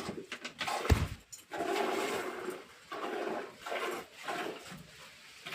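Milk squirting into a pail during milking, in rhythmic splashing spurts about one and a half a second, with a single thump about a second in.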